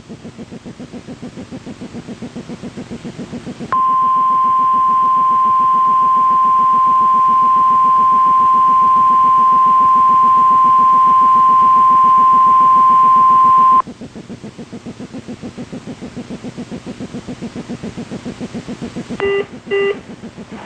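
NOAA Weather Radio 1050 Hz warning alarm tone, one steady high tone held for about ten seconds, starting a few seconds in. Before and after it a rhythmic rubbing noise pulses in the background, which the uploader blames on the KHB32 transmitter's antenna. Near the end come a few short bursts of SAME digital data, the end-of-message code.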